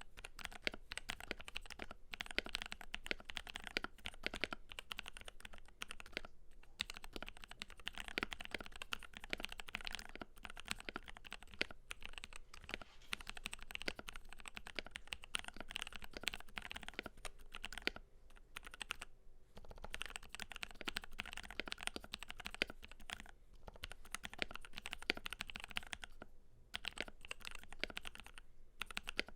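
Fast continuous typing on a Keydous NJ80 mechanical keyboard with a brass plate, lubed Durock Cerulean linear switches, lubed plate-mount stabilizers and Cherry-profile PBT keycaps: dense key clacks, broken by a few brief pauses.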